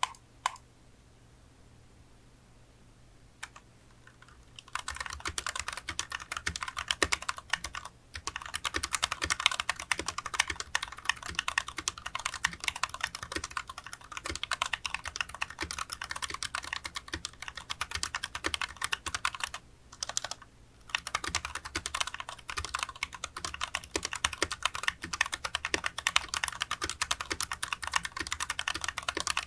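Fast typing on a Koodo Arcadia 65% mechanical keyboard with Gateron Brown tactile switches, a dense run of key clacks that starts about five seconds in and pauses briefly twice. Its stabilizers are lubed with Krytox GPL 205 Grade 0, which keeps their rattle down.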